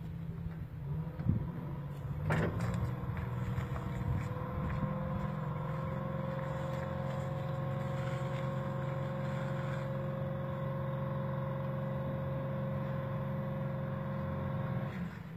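Tractor engine running steadily while the fertiliser spreader is loaded. About two seconds in there is a sharp knock, then the engine note rises a little and holds steady, dropping back near the end.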